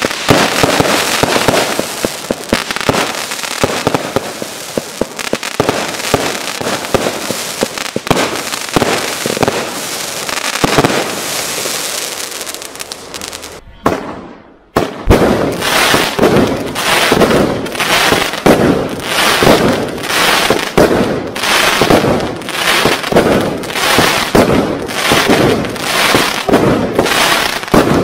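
Consumer firework cakes going off. First the Cube Fireworks 3030 Bulletproof crate fires a dense, unbroken run of crackling shots. It stops about 14 seconds in, and after a short pause the Lightning 25-shot barrage fires in a steady rhythm, about one shot every three-quarters of a second.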